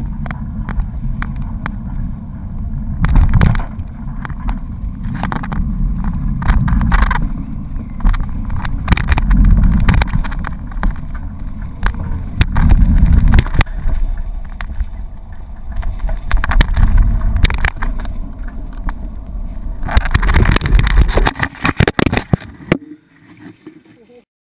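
Wind buffeting a handlebar-mounted action camera as a bicycle rolls over rough pavement, with the bike rattling and knocking over bumps. Near the end a burst of clatter, as the bike goes down, is followed by a sudden drop in sound.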